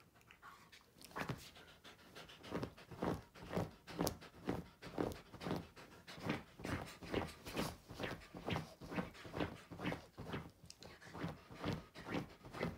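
Wolf dog panting in an even rhythm, about two breaths a second, starting about a second in.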